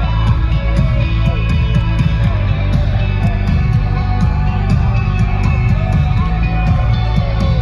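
Live rock band playing, loud and bass-heavy, with electric guitar and drums keeping steady cymbal ticks a few times a second.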